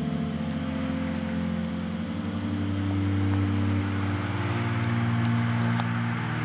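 Car engine running with its pitch shifting up and down a few times.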